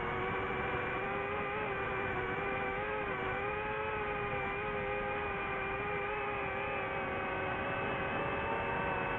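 DJI FPV drone's motors and propellers whining steadily in flight, the pitch wavering slightly with small throttle changes.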